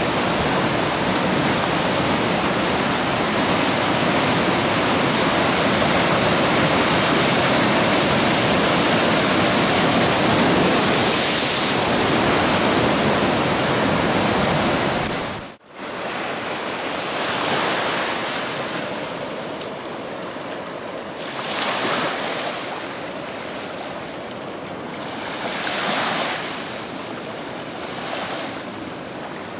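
Rough ocean surf breaking and churning steadily around rocks, cut off suddenly about halfway through. After the cut, quieter small waves wash onto a sandy beach, swelling and falling back every few seconds.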